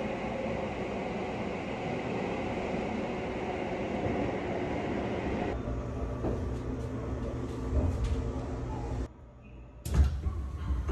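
Passenger train running, a steady rumble of wheels and motors inside the carriage. About halfway through the sound changes to a thinner rail-station sound; it almost drops out shortly before the end and then comes back with a sudden thump.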